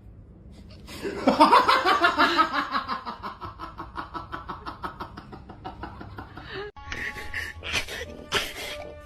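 Long peal of laughter, rapid pulses sliding down in pitch for about five seconds. It breaks off abruptly, followed by a few short, hissy bursts.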